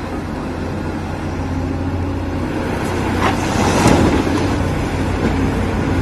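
A vehicle engine running steadily with a deep hum, swelling somewhat louder midway, dropped in as an edited sound clip that cuts in and out abruptly.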